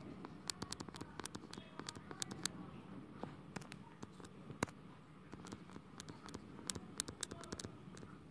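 Faint, irregular clicks and light scratching of a stylus tapping and sliding on a tablet touchscreen while writing by hand.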